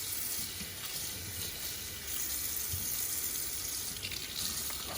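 Kitchen tap running hot water into the sink, a steady hiss.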